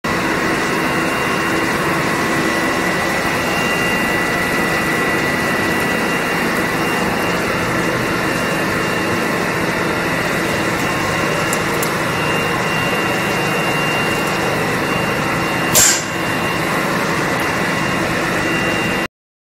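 Vacuum cleaner running steadily with a high whine, sucking loose granules off a metal checker-plate floor through a floor nozzle. One sharp click near the end.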